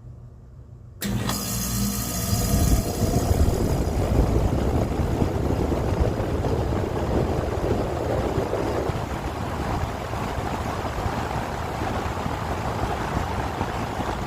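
A 2019 Allied heat pump kicking on about a second in on its first startup, then running with a steady whooshing hum from the compressor and fan.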